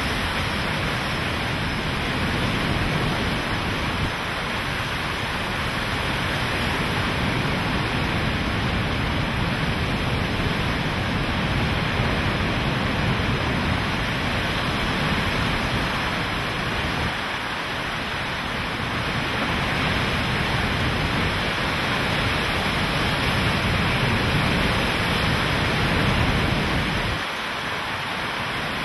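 Hurricane-force wind and driving rain: a loud, steady rush with a heavy low rumble that swells and eases with the gusts, slackening briefly about two-thirds of the way through and again near the end.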